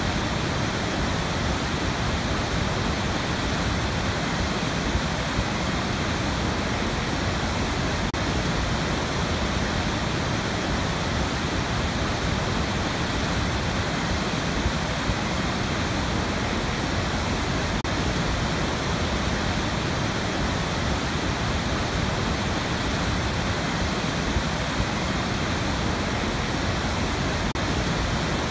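Large waterfall pouring over a rock lip into a gorge: a steady, dense rush of water.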